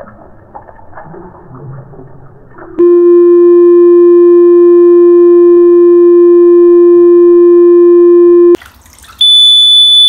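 Battery-powered Watchdog water leak alarm going off as water reaches its sensor at the tub drain: a loud, steady electronic tone starts about three seconds in. Near the end it breaks off briefly and comes back as a higher, shrill tone.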